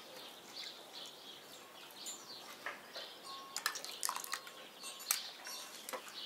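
Water dripping and trickling from blanched wild garlic leaves as they are lifted out of a stainless steel pan with metal tongs, with a few soft clicks of the tongs and small birds chirping in the background.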